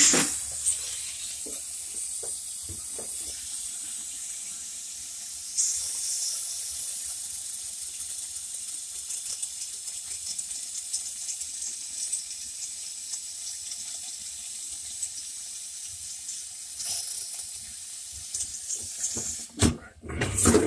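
A steady high-pitched hiss, like steam or a fine spray, with brief louder spurts about five and a half seconds in and again near seventeen seconds. Handling knocks and scrapes come near the end.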